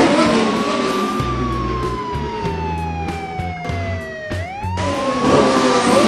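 A siren wailing slowly: the pitch rises, falls gradually for about three seconds, then rises again about four seconds in. It sounds over background music, with a rushing noise at the start and again near the end.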